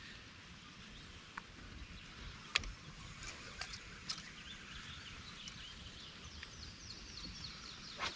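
Faint, steady hiss of a distant periodical cicada chorus, with birds chirping about five to seven seconds in and a few sharp clicks, the loudest about two and a half seconds in.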